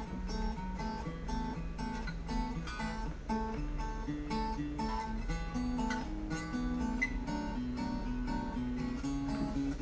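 Background music: an acoustic guitar arrangement with picked and strummed notes.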